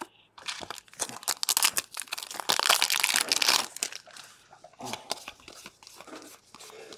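A Digimon trading card booster pack's wrapper crinkling as it is torn open, loudest about halfway through, followed by softer clicks and rustles as the cards are slid through by hand.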